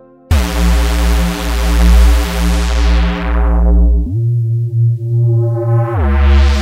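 Sylenth1 software synthesizer preset playing a sustained, bass-heavy synth note that starts about a third of a second in. Its bright top end closes down slowly as a filter sweeps. Near four seconds the pitch glides up about an octave, and near six seconds it glides back down as the brightness opens up again.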